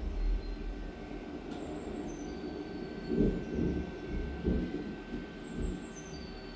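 Soundtrack of a simulated UFO descent and crash played over loudspeakers: a continuous low rumble with swelling whooshes and a faint steady high tone, and twice a run of faint high beeps stepping down in pitch.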